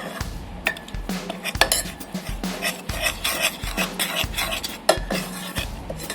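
A spatula stirring and scraping gram flour as it roasts in ghee in a pan, with repeated scrapes and clinks against the pan.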